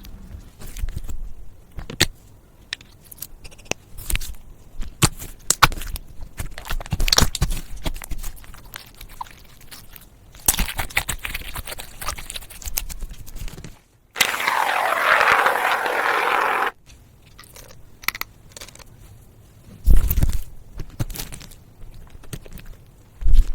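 Slime being squished, stretched and poked by hand, giving irregular sticky clicks, crackles and pops, with one denser, louder stretch of about three seconds midway.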